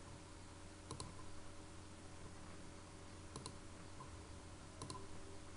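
Computer mouse button clicks: three short double clicks, about a second in, after three and a half seconds and near the end, over a low steady electrical hum.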